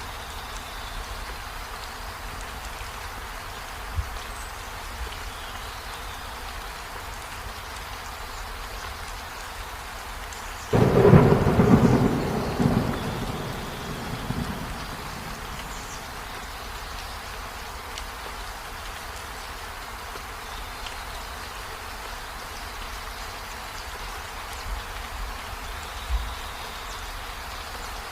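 Steady rain, with a sudden thunderclap about eleven seconds in that rumbles and fades away over about four seconds.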